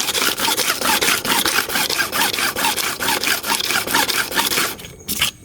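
Steel clipper blade rubbed back and forth on smooth sandpaper in quick rasping strokes, several a second, stopping near the end. The strokes are flattening and balancing the blade's cutting face before it is sharpened.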